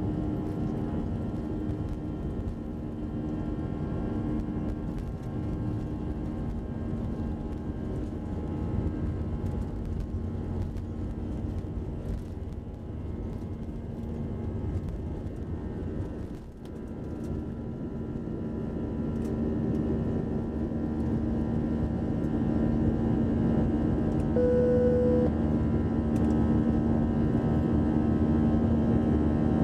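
Airbus A320 jet engines at takeoff thrust, heard from inside the cabin over the wing: a steady roar with a droning hum through the takeoff roll and liftoff into the climb. It grows louder in the second half, and a short single tone sounds near the end.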